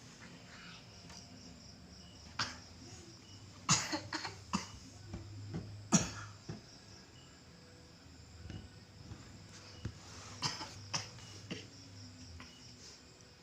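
A woman coughing in several harsh fits, the loudest around the middle. It is a chronic cough of years, which the ruqyah healer puts down to black magic sent against her.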